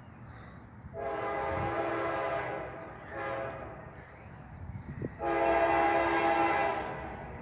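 Distant CSX diesel locomotive's multi-chime air horn sounding long, short, long, the last blast the loudest: the closing part of the long-long-short-long grade-crossing signal.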